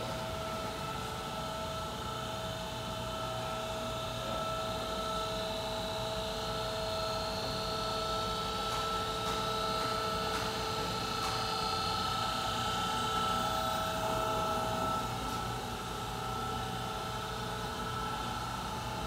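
Steady hum of powered-up shop machinery, with several steady whining tones over a low rumble that swell a little midway.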